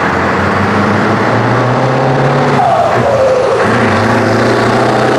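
Scania 143M's 14-litre V8 diesel on an open exhaust, pulling steadily as the truck approaches. About three seconds in the engine note drops out briefly, with a falling whistle, then picks up again.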